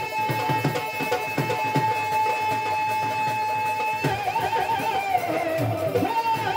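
Marathi devotional folk music: a long held melodic note for about four seconds, then an ornamented, wavering melody line, over hand-drum beats.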